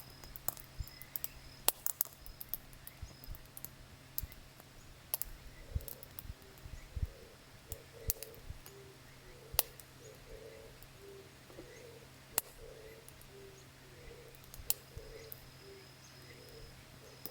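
Campfire wood burning, with irregular sharp crackles and pops.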